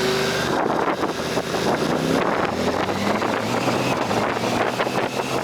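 Wind buffeting the microphone of a moving motorcycle, over the low steady running of its engine.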